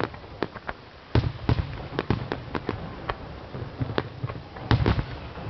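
Aerial fireworks shells bursting: an irregular string of bangs and crackles, the loudest about a second in and again near the end.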